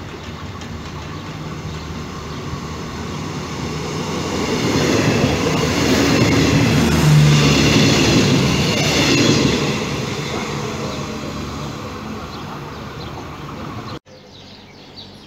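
Renfe Media Distancia passenger train passing along the platform: a rising rumble of wheels on rail and rushing air, loudest about seven seconds in with a high whine over it, then fading away. The sound cuts off suddenly near the end.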